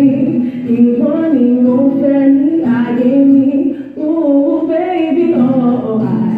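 A woman singing a slow love song in long held notes that slide gently between pitches.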